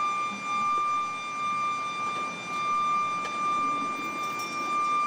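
Steady high-pitched mechanical whine over a rushing hiss, holding one pitch without a break.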